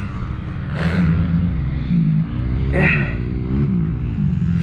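Motocross bike engine ticking over at idle, blipped twice: short rises and falls in revs about a second in and again about three seconds in.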